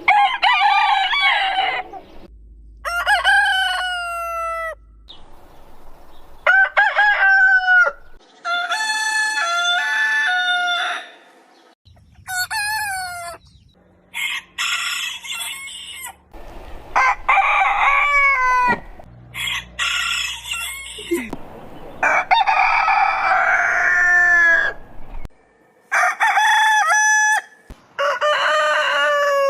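Roosters crowing, about ten crows one after another, each one to three seconds long, starting and stopping abruptly as if spliced together.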